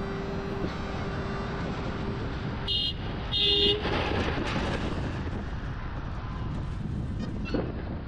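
Road traffic noise with a vehicle horn honking twice in quick succession, about three seconds in; the second honk is longer.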